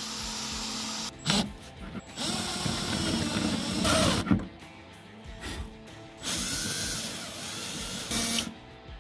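Corded electric drill with a spot weld cutter biting into rusty sheet steel, drilling out the spot welds that hold a car's battery tray. It runs in three spells with short pauses between.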